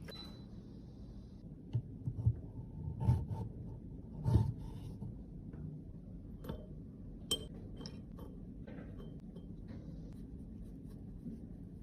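Light taps, clinks and scraping from small tools working on hard cosmetic containers, with the sharpest knocks about two to four seconds in and a few small ringing clinks after.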